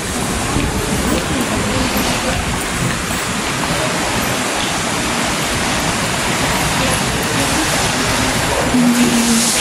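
Train moving through the station, a loud steady rushing rumble with no clear beat. Near the end there is a short low hum.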